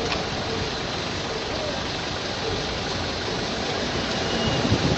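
Steady rushing street-traffic noise with no distinct events.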